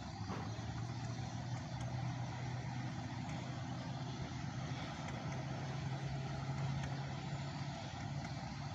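Small boat engine running steadily, a low even hum with water and wind noise behind it.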